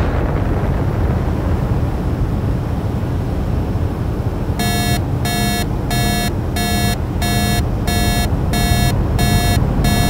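Sci-fi spaceship sound effect: a steady low rumble of starship ambience. About halfway in, an electronic alarm starts beeping in a regular pattern, nearly two beeps a second.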